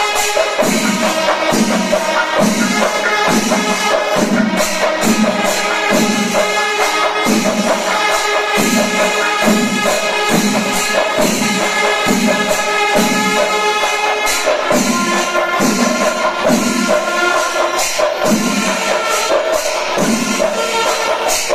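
Traditional Kerala temple percussion ensemble playing: drums keeping a steady beat, about three strokes every two seconds, under clashing hand cymbals and a sustained wind-instrument tone.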